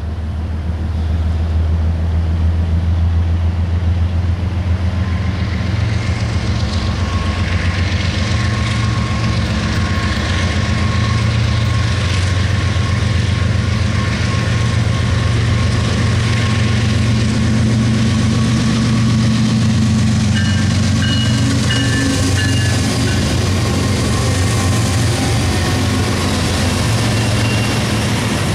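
Approaching Norfolk Southern double-stack freight led by GE diesel locomotives (two ES44DCs and an ex-Conrail C40-8W), running with a steady deep engine drone. Near the end the locomotives pass close by.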